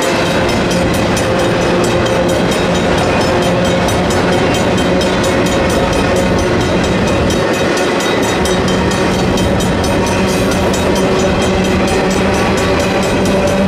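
A double-stack intermodal freight train's cars rumble and clatter steadily through a grade crossing. Over this, the crossing bells ring on without a break: a Griswold mechanical bell and a Safetran Type 1 electronic bell.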